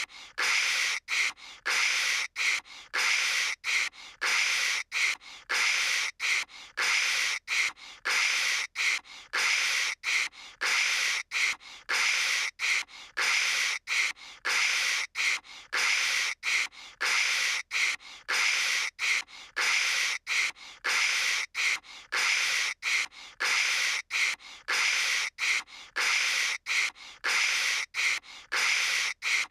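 A girl's voice imitating phone-line static with her mouth: a hissing "kshh" noise repeated in short bursts, close to two a second, with brief gaps between them.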